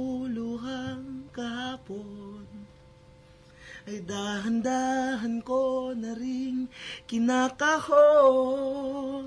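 A man singing a slow ballad live in held, drawn-out phrases, with acoustic guitar. There is a quiet gap about three seconds in, and the loudest phrase comes near the end.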